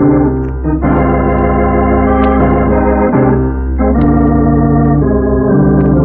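Organ music bridge: a few sustained chords, each held for one to two seconds before moving to the next. It is the musical transition between scenes in an old-time radio drama.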